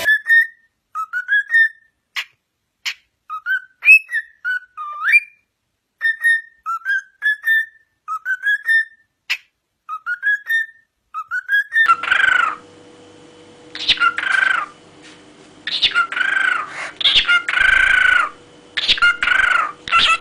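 Cockatiels whistling. First comes a string of short, rising whistled notes with pauses between them. From about twelve seconds in, louder and longer whistled notes follow over a steady background hum.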